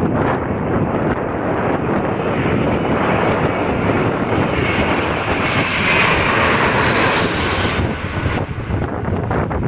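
Airbus A321 jet engines passing on landing, a rushing jet noise that builds, peaks about six seconds in and drops away sharply about eight seconds in. Strong wind buffets the microphone throughout.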